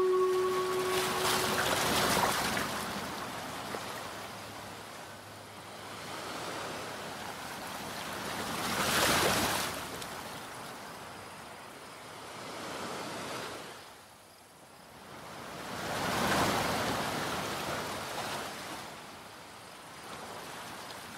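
Waves washing in, a rushing noise that swells and fades about every seven seconds. A held musical chord fades out about a second in.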